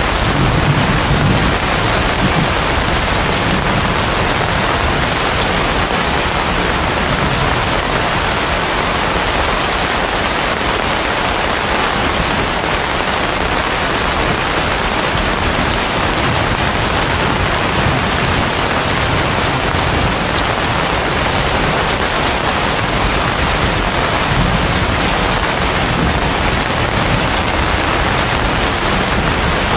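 Heavy rain falling steadily on broad banana and palm leaves, a dense, even hiss. A low rumble swells about a second in and again near the end.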